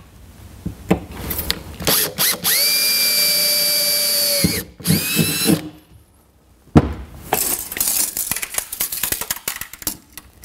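Cordless drill boring a 1/8-inch pilot hole through a 2015 Ford F-150's aluminium truck bed: the motor whines steadily for about two seconds, then gives a few short blips. A little past the middle comes one sharp knock, then a run of light clicks and rattles from tools being handled.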